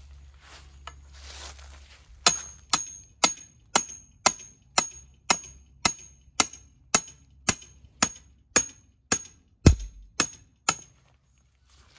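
A hammer striking the top of a steel EMT conduit pipe, driving it into the ground as a stake: about seventeen sharp metallic blows at roughly two a second, each with a short ring, one near the end louder than the rest. Faint rustling comes before the hammering starts, about two seconds in.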